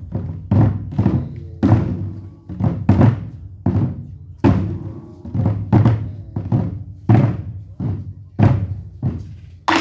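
Korean buk drums beaten in a performance: heavy, deep strikes at roughly two a second, with a louder accented strike at the very end.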